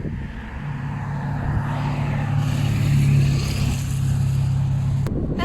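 A motor vehicle's engine humming steadily, growing louder toward the middle, then cut off suddenly about five seconds in.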